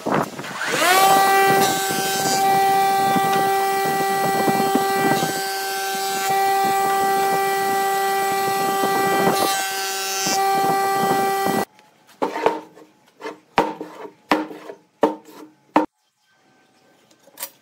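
Jointer-planer motor spinning up with a rising whine, then running at a steady pitch while a wooden block is fed over the cutter head, with louder stretches as it cuts. It stops suddenly and is followed by a few sharp knocks and taps of the block and a steel square on a wooden bench.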